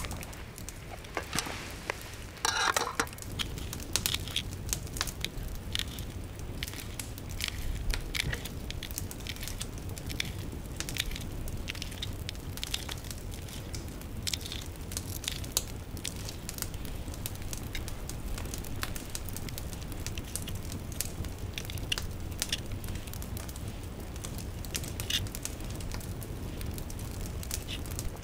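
Wood campfire crackling, together with a knife cutting green chili pepper and cherry tomatoes on a bare rock: irregular sharp clicks over a low steady rumble, denser about two to three seconds in.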